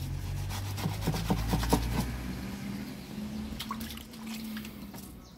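Kitchen knife sawing and scraping through fish fillets on a wooden board, a run of quick strokes that is busiest in the first two seconds.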